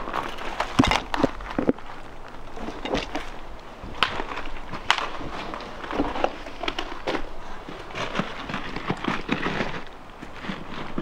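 Footsteps crunching over loose stone rubble and dry brush, with irregular crackles and snaps of twigs underfoot.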